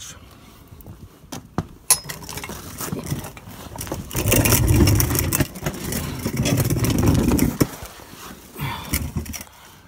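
Scraping and rustling of a person getting down and crawling under a truck, with the phone's microphone rubbed and knocked about: scattered clicks throughout, and a loud, rough stretch of scraping and rubbing from about four seconds in until nearly eight seconds.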